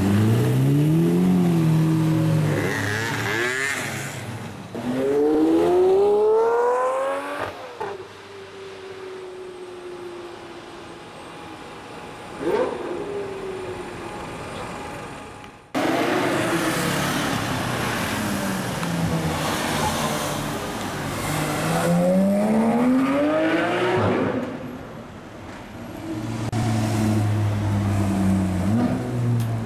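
Supercar engines accelerating hard, the note climbing in pitch through several quick gear changes: at first a Lamborghini Murciélago's V12 pulling away, then, after a quieter stretch of passing traffic, more hard acceleration and near the end a Ferrari 458 Speciale's V8 approaching.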